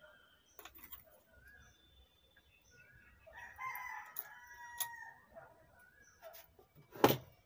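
A rooster crowing once, a call of about two seconds starting a few seconds in. Near the end a single sharp knock, the loudest sound, with a few small clicks before it.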